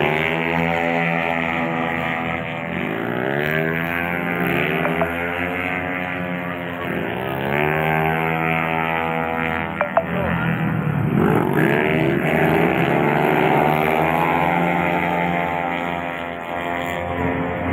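Two-stroke 125 cc underbone racing motorcycles revving hard as they pass one after another, each engine's pitch climbing as it accelerates out of the corner, about four passes in all.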